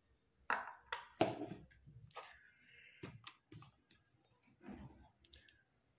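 Plastic clicks and knocks of a hand pull-cord vegetable chopper being handled as its blade insert is set into the bowl, with a brief scraping squeak about two seconds in.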